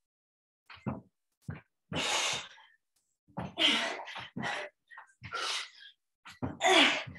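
A woman breathing hard during skater jumps: sharp, noisy exhales and gasps about once a second, with a few short thuds of her feet landing.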